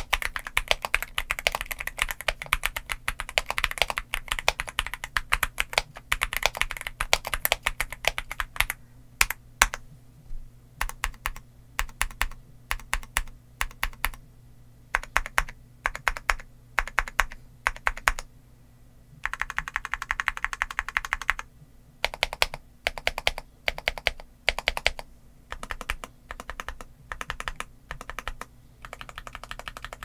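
Typing on a Yunzii AL66 aluminium mechanical keyboard with Outemu Milk linear switches and Cherry-profile PBT keycaps. Fast continuous typing for about nine seconds, then keys struck singly and in short groups, with a couple of brief stretches of rapid continuous tapping about two-thirds through and near the end.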